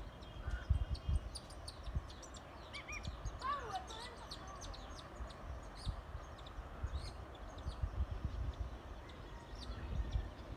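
Small birds chirping busily, many short high calls throughout, with a few sliding calls about three to four seconds in, over irregular low thumps.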